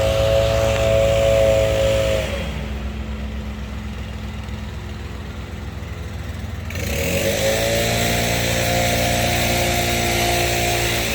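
Iseki 216+ ride-on mower running with its cutting whine. About two seconds in the whine drops away and the sound goes quieter. Near seven seconds it rises back up to full cutting sound.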